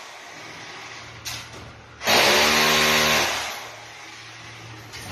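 Handheld electric drill boring into a wall: one burst about two seconds in, the motor running at full speed for about a second and a half and then winding down, with a short click a moment before.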